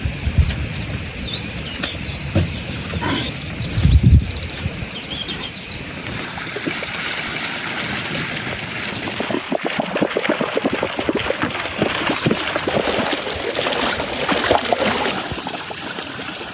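Water trickling and splashing, with dense irregular splashes through the second half.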